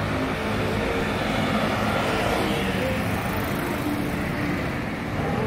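Steady street traffic noise, an even rumble of passing vehicles with no distinct events.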